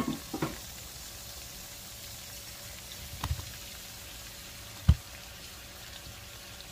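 Steady sizzle of cut corn frying in bacon grease in a skillet, with a few clunks of kitchenware. The loudest is a sharp knock about five seconds in.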